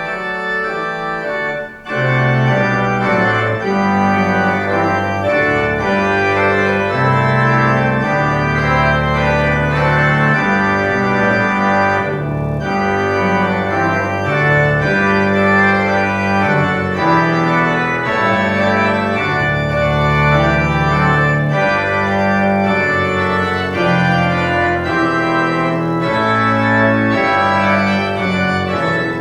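Organ playing a march as a service prelude: full sustained chords over a moving bass line. The sound drops briefly about two seconds in, then comes back at full strength.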